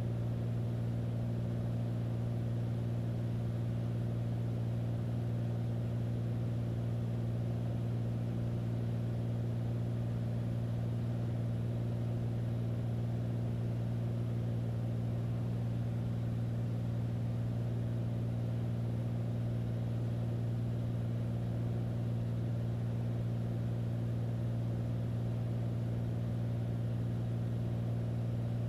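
Beechcraft A36 Bonanza's piston engine and propeller heard from inside the cockpit: a steady, unchanging low drone.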